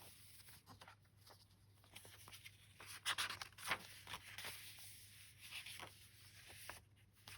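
Paper rustling and light handling noises as the pages and pockets of a handmade paper junk journal are moved and a page is turned, with a few louder crinkles about three seconds in. A faint steady low hum sits underneath.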